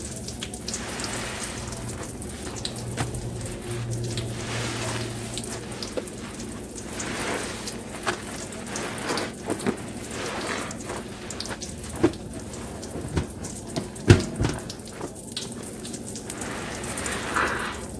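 A soapy sponge being squeezed over and over: wet squelching with liquid spattering and dripping, swelling every second or two. There are a few sharper taps, the loudest about two-thirds through.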